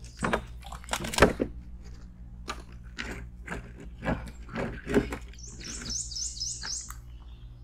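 Scattered knocks and clicks of gear being handled in a small boat, the loudest about a second in, then a bird singing a quick run of about six repeated high chirps near the end.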